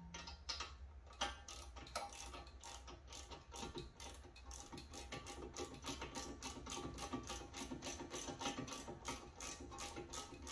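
Ratchet wrench clicking in a steady run, several clicks a second, as it backs out the top brake caliper bolt.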